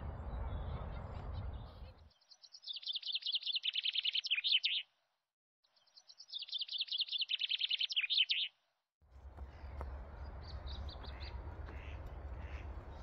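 A songbird singing a fast run of high notes about two and a half seconds long, twice, with a short pause between. Before and after the song there is a steady outdoor rumble and hiss.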